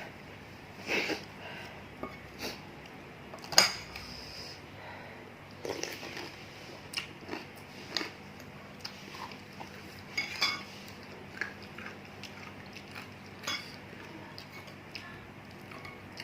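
Spoon and fork clinking and scraping against a bowl while eating bakso meatball soup: scattered short clicks at irregular intervals, the sharpest about three and a half seconds in.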